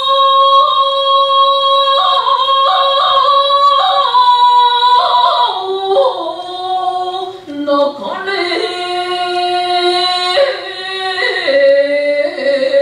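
A woman chanting shigin, the Japanese sung recitation of a Chinese poem, solo in a high voice: long held notes that step and slide from one pitch to another, with a brief break for breath about seven and a half seconds in.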